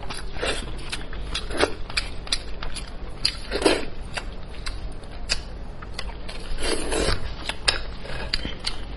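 Close-miked mouth sounds of chewing cooked head meat: a run of quick wet clicks and lip smacks, with a few louder squelches. Plastic-gloved fingers pull at the meat.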